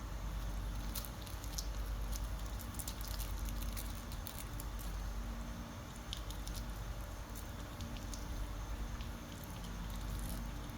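Faint, irregular crisp clicks and crackles of a baby monkey chewing a cicada, over a steady low hum.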